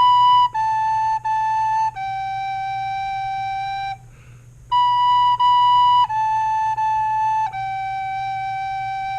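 Soprano recorder playing a tongued beginner phrase, B, B, A, A, G, with the last G held long. It stops for a breath, then plays the same phrase again, each note stepping down in pitch.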